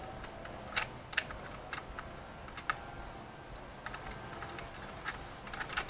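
Irregular faint clicks and ticks of a small Phillips screwdriver working the battery-cover screw on a plastic toy keyboard.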